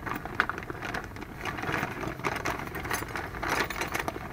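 A plastic bag of drum-brake hardware (springs and adjuster pieces) being handled: plastic crinkling and small metal parts clicking and rattling together in irregular quick bursts.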